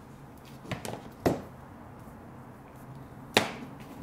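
Hand tools and a plastic terminal block being set down and picked up on a work board: a few light clicks, a sharp knock about a second in, and a louder sharp knock a little after three seconds.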